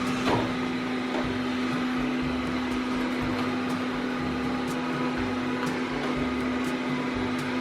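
Lydsto R1 robot vacuum-mop running its cleaning cycle: a steady motor and fan hum with one constant tone, and a few faint clicks.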